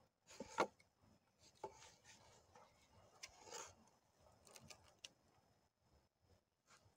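Cord being wrapped and pulled tight around wooden poles for a lashing: faint, irregular rasping and rubbing of the cord against the bark, with a sharp knock about half a second in.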